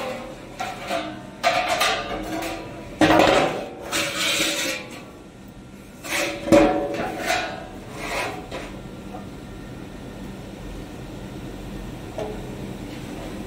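Metal knocking and scraping as a diffusion pump's core is worked loose and lifted out of its steel pump body: a string of irregular clunks over the first eight seconds or so, the loudest about three and six and a half seconds in, then only a quiet steady background.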